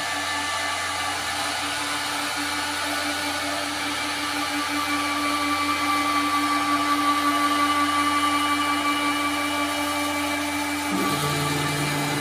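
CNC router spindle running with a steady high whine while the machine re-runs its cutting path over an MDF sheet, resumed mid-job to free a piece left attached.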